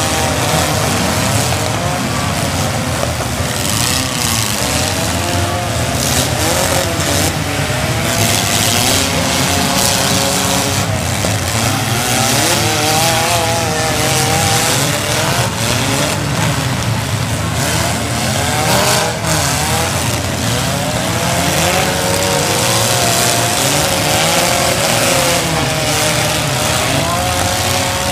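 Several four-cylinder demolition derby cars running hard at once, their engines revving up and down in overlapping pitches, with a few sharp knocks of cars colliding.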